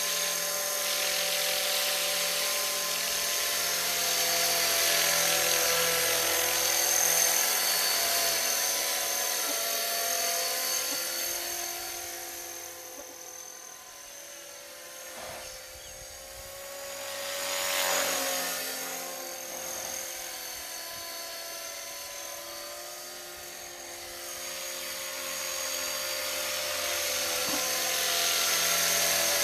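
Electric 450-size RC scale helicopter with a Bell 206 Jet Ranger body in flight, a steady high motor and rotor whine. It fades as the model flies off into the distance midway, swells for a moment about eighteen seconds in, and grows loud again as it comes back in close near the end.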